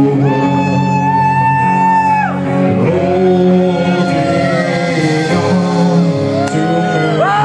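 Live rock music: a singer holds long notes, each sliding down at its end, over an electric guitar.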